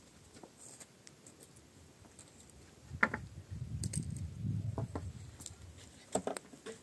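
Knocks and thuds on an old wooden plank roof as a man moves about on it with a metal bar: a sharp knock about three seconds in, a couple of seconds of dull thuds after it, and a few clicks near the end.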